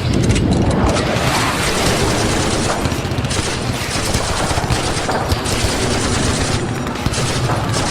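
Sound-effect battle soundscape of World War 2 gunfire: continuous rapid machine-gun fire and rifle volleys over a dense rumble of distant shots and explosions.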